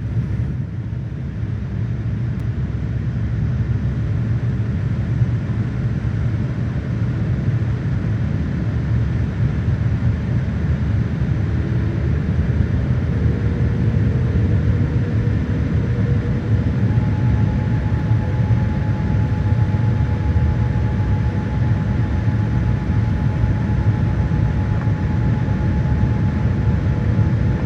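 Steady low rumble of an aircraft in flight, unbroken throughout. About halfway through, two faint steady tones come in above the rumble.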